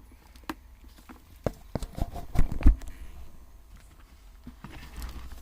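Handling noise from a multimeter and its probes being set up to measure a supply voltage: a scatter of light clicks and knocks, with a couple of heavier thumps a little past halfway.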